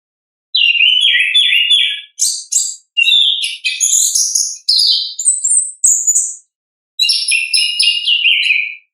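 Chestnut-capped thrush singing: loud, rapid, varied phrases of quick high notes, with a brief pause about six and a half seconds in before a last phrase.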